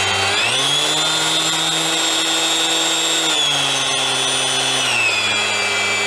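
Ryobi RROS18C brushless 125 mm random orbital sander running steadily while its three-step speed setting is changed: the motor's whine jumps up in pitch about half a second in, then drops in two steps, about three seconds in and near five seconds, back to the lowest speed.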